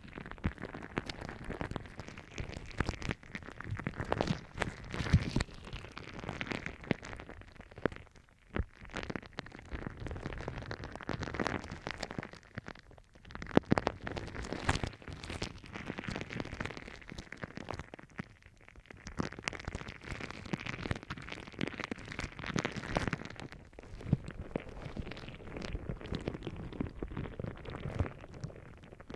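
Gel ball pressed and rubbed against the ear of a binaural microphone: dense crackling, rubbing and clicking close to the mic, coming in waves with brief pauses.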